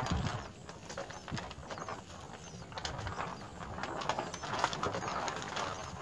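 A sparrow shifting and working in its straw nest inside a bamboo tube: irregular quick dry clicks and rustling of the nest material and bamboo.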